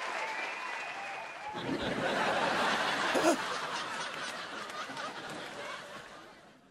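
Canned studio-audience laughter and applause from a sitcom laugh track, swelling about a second and a half in and dying away near the end.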